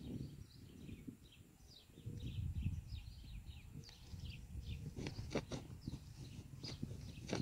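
Small birds chirping over and over, with gusts of wind rumbling on the microphone. A few sharp clicks come in the second half.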